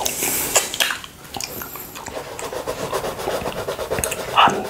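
Close-miked licking of honey off a glass plate, wet mouth sounds. From about a second and a half in, a steady scratch of a pencil shading lightly on paper, with a louder lick near the end.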